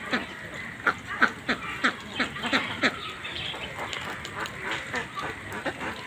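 Domestic ducks quacking: a quick run of short, sharp quacks in the first half, then softer, scattered calls.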